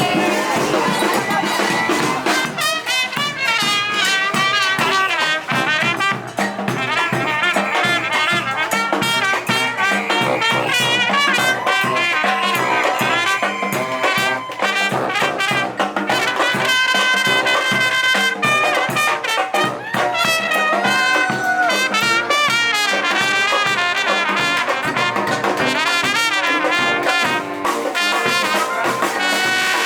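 Brass horns, trumpets and trombones among them, playing a tune together, several lines at once.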